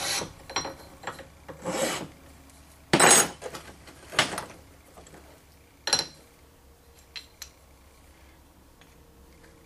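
Hand file rasping across the edges of a graphite mold block, about five strokes in the first few seconds, taking the crisp corners off. A single sharp knock comes about six seconds in, followed by faint handling ticks.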